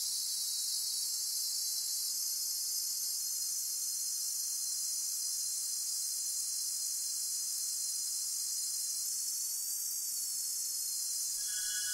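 Electronic keyboard synthesizer sounding a steady, high-pitched hiss, a filtered-noise texture with a faint high tone that bends up slightly near the end. Pitched notes come in just before the end.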